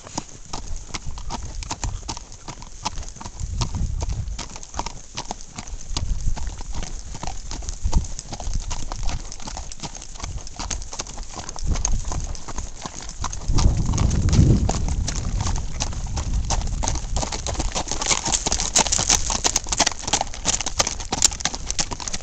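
Hoofbeats of several horses trotting and loping over dry ground, a dense, uneven clatter of clip-clops, with a stronger low rumble about fourteen seconds in.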